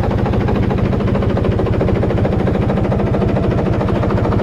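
Yamaha 71N (D200KH) 74 hp boat engine running steadily with an even, rapid beat, sounding healthy.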